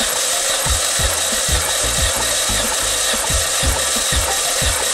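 Starter motor cranking a 1.2-litre Opel Z12XEP four-cylinder engine during a compression test of the fourth cylinder, a steady whirr with a regular pulse about twice a second as the pistons come up on compression.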